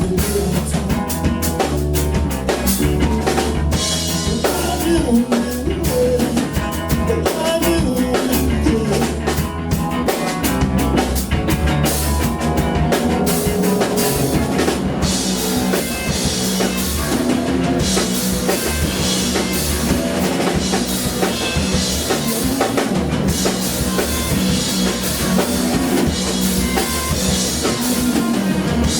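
Live band playing rock-style music, driven by a drum kit over a heavy, steady bass.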